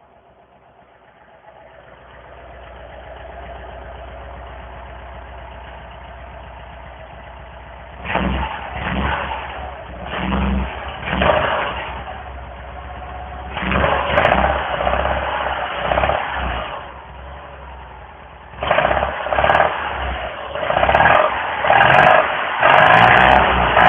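Citroën 2CV's air-cooled flat-twin engine heard at its exhaust. It comes up to a steady idle, then is revved in a string of short blips that rise and fall, with louder, closer-spaced revs near the end.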